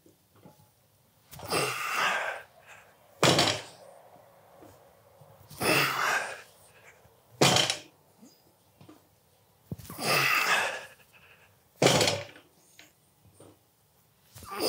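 Loaded barbell plates thudding onto a rubber gym floor three times, about four seconds apart, during heavy straight-bar deadlift reps. Between the thuds the lifter breathes out hard with each lift.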